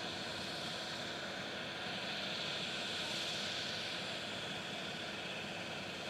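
Steady highway traffic noise, tyres hissing on the road, with one vehicle passing a little louder about three seconds in, over a faint steady hum.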